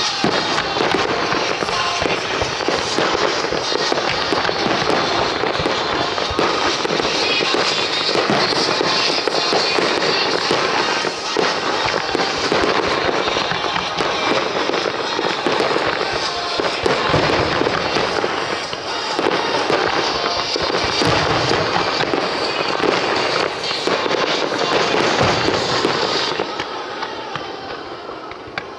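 A rapid fireworks barrage (starmine) of many rising shells and bursts, with dense cracking and banging, over music played with the show. The volleys die away near the end.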